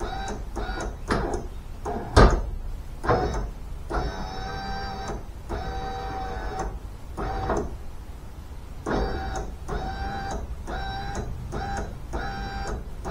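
New power-window regulator motor in a 1998 Ford Mustang door, run up and down on test with no glass fitted: a pitched electric whine that starts and stops in a dozen or so short runs, two of them about a second long. A sharp loud click comes about two seconds in.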